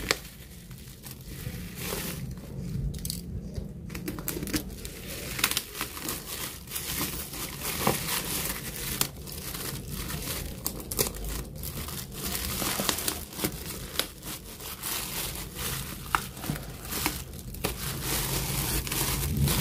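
Plastic parcel wrapping and packing tape being scored with a small blade and pulled open by hand, with continuous crinkling and crackling of the plastic, busier after the first few seconds.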